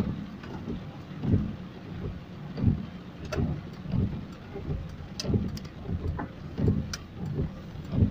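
Heavy rain falling, heard from inside a slowly moving vehicle behind a rain-spattered windscreen: a steady hiss with a low thump about every second and a half and a few sharp ticks of drops.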